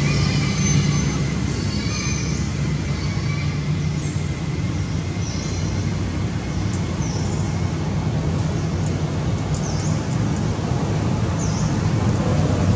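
Steady low engine hum with a hiss over it, and short high bird chirps every second or two.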